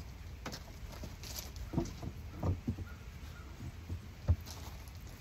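A few scattered light knocks, the sharpest about four seconds in.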